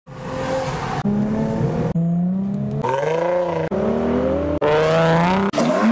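Modified Japanese cars accelerating and revving hard, one after another in short clips of about a second each, with abrupt jumps between them.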